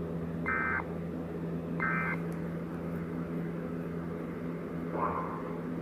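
Emergency Alert System end-of-message data tones: two short, screechy digital bursts about a second and a half apart, over a steady low hum. A fainter tone comes in near the end.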